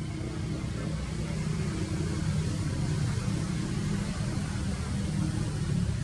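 Steady low background rumble with a faint hiss, unchanging, with no bird calls or distinct sounds, like distant traffic noise.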